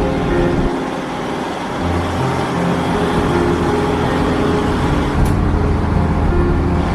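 Car driving along a road, with steady engine and road rumble heard from inside the cabin.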